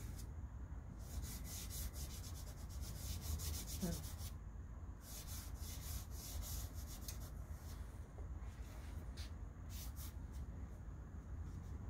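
Pastel stick rubbed and scratched across paper in runs of quick back-and-forth strokes, three runs with short pauses between them.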